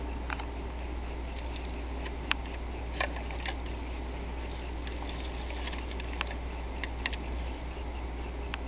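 Handling noise: scattered light clicks and taps at irregular intervals over a steady low hum.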